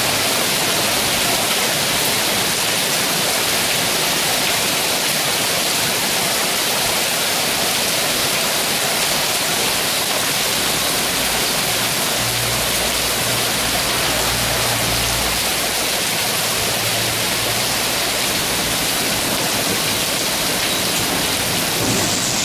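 Hail and heavy rain coming down in a dense, steady hiss. A low rumble comes and goes about halfway through.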